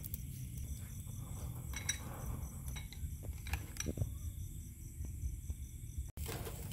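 A few light clinks and knocks, scattered and irregular, over a low steady background rumble.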